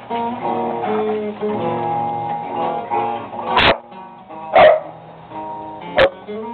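Acoustic guitar music with plucked, ringing notes, broken by three short, loud dog barks about halfway through, again a second later and near the end.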